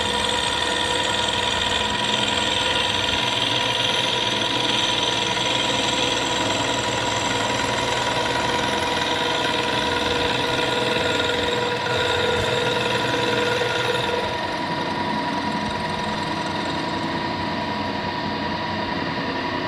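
Vertical milling machine running with its end mill taking a light facing cut across a cast housing, a steady chattering whine. The cut trues the housing's sealing face against fuel leaks. About fourteen seconds in the cutting sound drops away and the mill runs on a little quieter.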